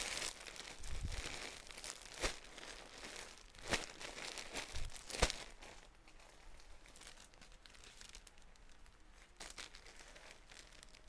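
Plastic-bagged clothing sets crinkling and rustling as they are handled on a lap, with a few sharp crackles in the first half; the rustling grows quieter after about six seconds.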